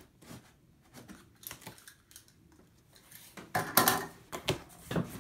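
Cardboard shipping box being opened by hand: packing tape pulled free and the flaps lifted. Scattered light taps and clicks, then a louder rasping burst about three and a half seconds in, followed by two more sharp cardboard sounds.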